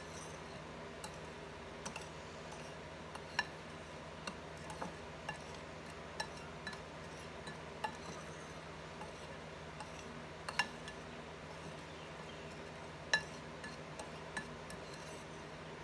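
A spoon stirring a dry seasoning mix in a ceramic bowl: irregular light clinks and taps of the spoon against the bowl, with a soft scrape of the spices between them.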